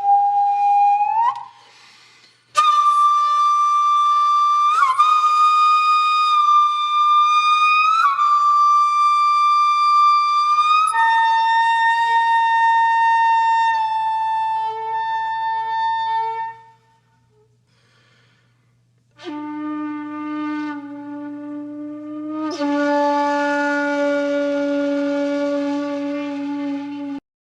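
Slow background music of long held wind-instrument notes, each note slightly bending in pitch as it begins. The melody drops to lower notes in the last third, and there are two short pauses.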